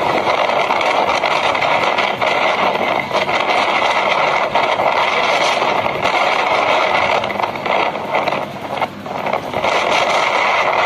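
Steady, loud rush of a rain-and-wind storm: heavy rain and gusting wind with no clear pitch, easing briefly a couple of times near the end.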